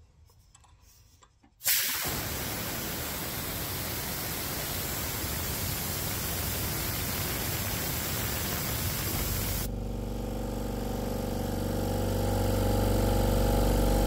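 Compressed air hissing out of an air compressor's pressure relief valve, starting suddenly about two seconds in. About eight seconds later the hiss gives way to the AEG compressor's electric motor and pump starting up and running steadily, growing louder: the pressure switch has closed its contacts because the tank pressure has dropped.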